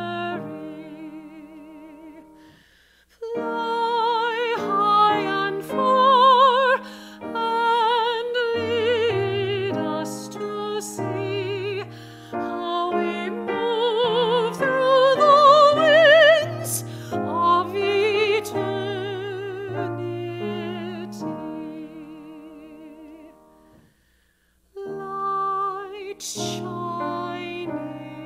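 A solo female singer sings a slow song in an operatic style with wide vibrato, accompanied by piano. The music breaks off briefly about three seconds in and again near the end.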